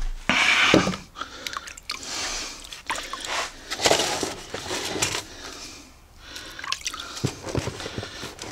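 Water poured from a bucket into dry fishing groundbait about the first second, then hands squishing and kneading the wet feed in a plastic box in irregular bursts.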